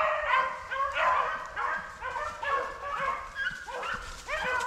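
A pack of beagles baying on a rabbit's trail: several dogs' voices overlap in repeated cries, each one falling in pitch. The dogs are on the scent, running a swamp rabbit.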